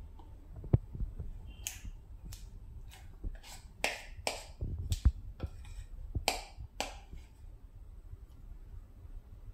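Spatula scraping thick cake batter out of a glass mixing bowl, with irregular sharp clicks and taps where the spatula and bowl knock against glass and short scrapes in between. It is busiest in the first two thirds and sparser near the end.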